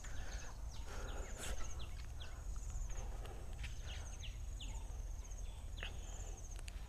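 Evening orchard ambience: a steady, high, pulsing insect trill with short falling bird chirps about every half second, over a low rumble.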